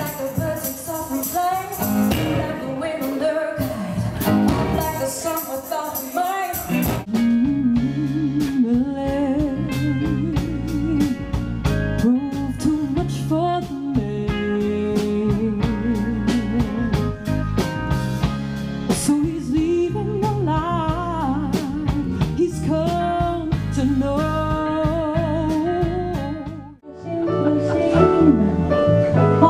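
A woman singing with a live band of bass, piano, guitar and horns, in excerpts cut one after another: the music changes abruptly about seven seconds in, and again after a brief dip near the end.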